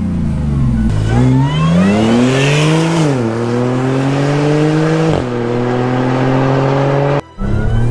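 Audi S4's supercharged 3.0 V6, APR-tuned with a Milltek Race half-line exhaust, accelerating hard: the revs drop briefly, then climb steeply, with two quick upshifts about three and five seconds in, each followed by a fresh rising pull. The sound breaks off abruptly for a moment near the end.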